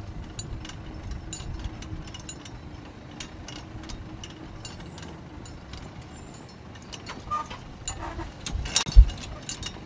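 Engine running steadily in the background, with scattered metallic clicks and ticks and one loud knock about nine seconds in.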